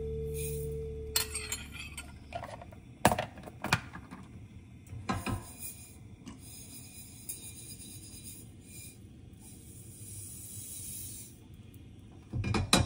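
Kitchen handling sounds: scattered knocks and clinks of dishes and utensils, with soft rubbing and scraping between them. Background music fades out in the first second or so.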